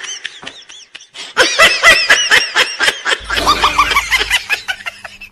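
High-pitched laughter, a fast run of short 'ha' notes about five a second, likely a comic laugh effect laid over the sketch.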